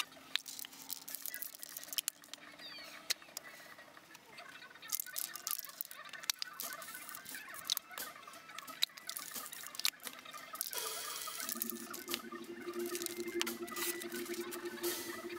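Quiet opening of an original song: scattered clicks and crackles over a faint hiss, then a sustained low held tone entering about eleven seconds in.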